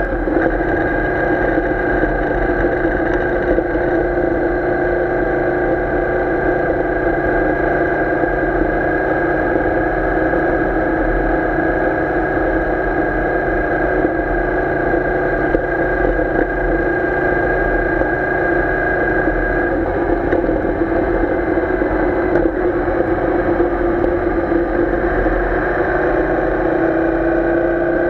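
Royal Enfield Interceptor 650's parallel-twin engine running steadily under way at about 4,000 rpm. Its pitch eases slightly about two-thirds through and climbs again near the end.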